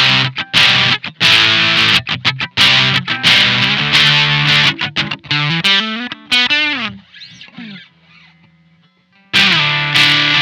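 Squier Telecaster electric guitar through a Maestro Fuzz Tone FZ-M fuzz pedal set to low gain, playing choppy rhythmic fuzz chords. About five seconds in a single-note run climbs and falls back, the fuzz fades to near quiet, and the chords come back near the end.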